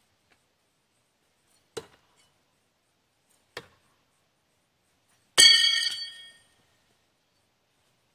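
Three steel Double Trouble throwing knives, 12½ inches long and 3/16 inch thick, striking a wooden log-round target about two seconds apart. The first two give short thuds. The third hits with a loud metallic clang, and the blade rings for about a second as it dies away.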